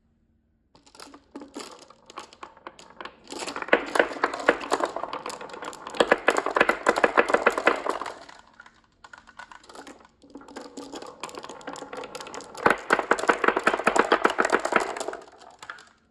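Many marbles clattering down a marble run track, a rapid mass of clicks and clacks. It comes in two waves: each starts with a few clicks, swells to a dense rattle, then thins out. The break between them falls about halfway through.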